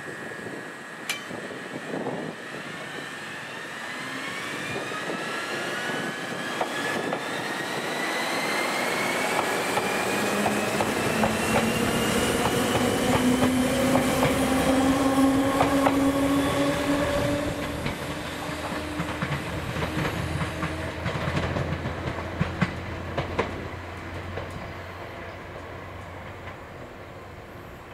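Ohmi Railway 100 series (ex-Seibu 101 series) two-car electric train pulling away: traction motor and gear whine rising in pitch as it accelerates, loudest as it passes close by about halfway through, with wheels clacking over rail joints, then fading as it draws away.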